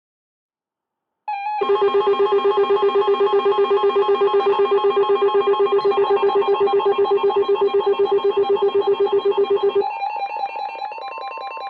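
Weather radio emergency alert alarm: a loud electronic ringing tone that starts suddenly about a second in and pulses rapidly, then changes near the end to a thinner pulsing sound over a steady high tone, signalling that a new warning is about to be broadcast.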